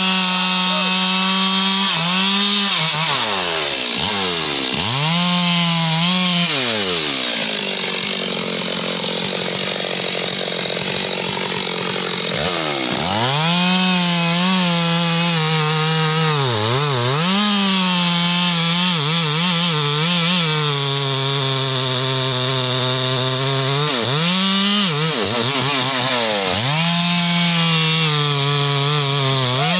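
Stihl two-stroke chainsaw cutting into the base of a teak trunk at high revs. Its engine pitch sags and recovers again and again as the chain bites into the wood, and it drops to lower revs for several seconds in the middle.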